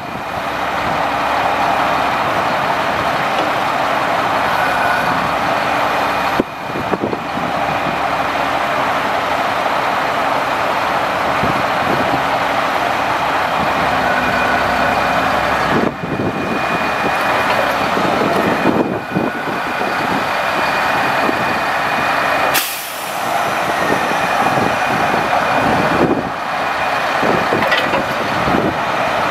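Grapple truck's Caterpillar C7 diesel running steadily to drive the hydraulics while the grapple is rotated and its jaws are opened and closed, with hydraulic hiss and a steady high whine. The sound dips briefly several times as the controls are worked, and there is one sudden sharp sound about three quarters of the way through.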